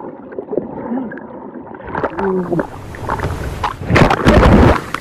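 Turbulent water churning and bubbling, as heard from under the surface, growing much louder about four seconds in. A short wavering tone sounds about two seconds in.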